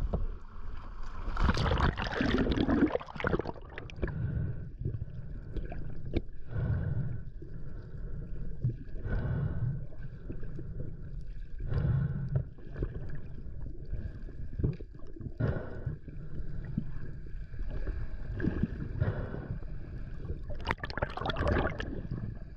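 Sea water splashing and gurgling around the camera, mostly underwater, in irregular surges. It is loudest about two seconds in and again near the end.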